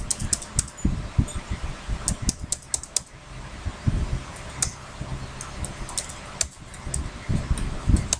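Computer keyboard being typed on: a quick run of repeated Enter-key presses, then shorter clusters of keystrokes as commands are entered, over a steady fan hum.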